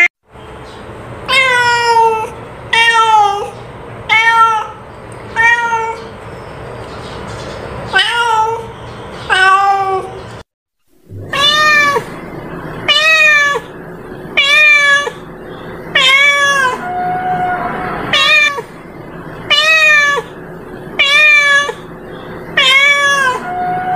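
Domestic cat, an orange-and-white long-haired cat, meowing over and over: short meows that each rise and then fall in pitch, about one a second, with a brief silence about ten seconds in.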